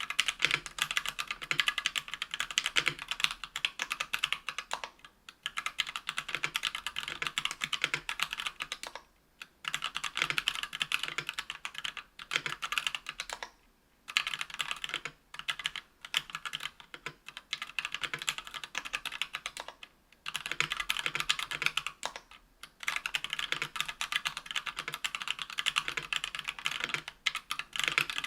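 Typing on a KBDfans Tofu 60% aluminium keyboard with stock, unlubed Kailh BOX Red linear switches on an aluminium plate, under Cherry-profile PBT keycaps. Fast keystrokes come in runs of a few seconds, broken by short pauses.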